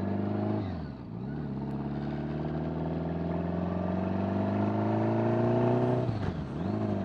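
1975 Honda Gold Wing's flat-four engine pulling under load, its pitch climbing steadily, with a quick drop in revs as it shifts up a gear about a second in and again near the end.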